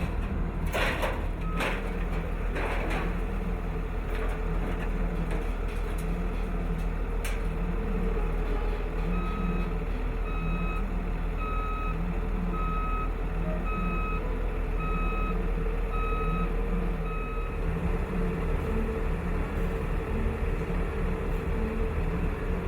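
Heavy vehicle's engine running steadily, with a reversing alarm beeping about once a second for several seconds in the middle.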